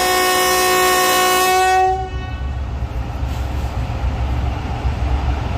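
The horn of a GE U40 diesel-electric locomotive sounds one long, multi-tone blast as its first departure signal and cuts off about two seconds in. After that, the locomotive's diesel engine runs with a low, steady rumble.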